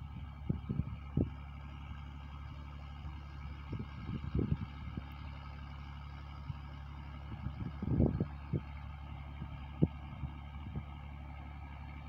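Tractor engine pulling a plough in a distant field, a steady low drone, with irregular low thumps on the microphone, the strongest about eight seconds in.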